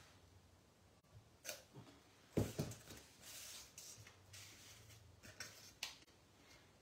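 A few light clicks and taps, the sharpest about two and a half seconds in, with brief rustling, as stamping supplies are handled: a clear stamp is taken off its sheet and readied for inking.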